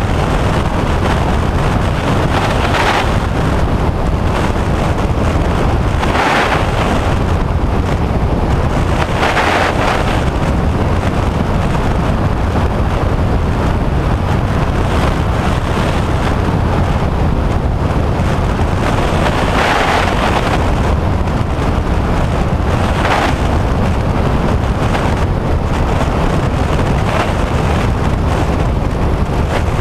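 Steady drone of a small high-wing propeller plane in flight, engine and rushing air together, with a few brief swells of wind noise on the microphone.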